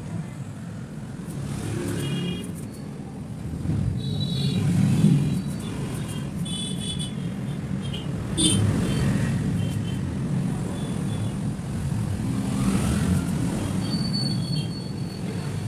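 Steady low rumbling background noise, with a few short high tonal chirps scattered through it.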